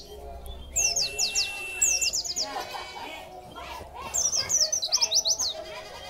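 Caged white-eye (pleci) singing quick runs of high, falling chirps in three bursts, with a held whistle about a second in.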